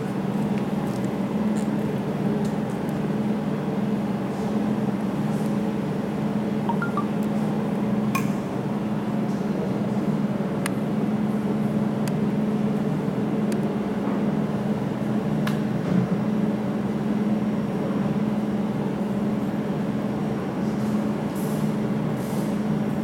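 Steady hum of a jewellery laser welding machine running, with a few short clicks now and then.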